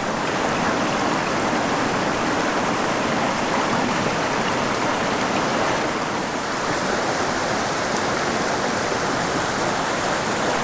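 Small rocky mountain creek flowing over stones: a steady rush of water.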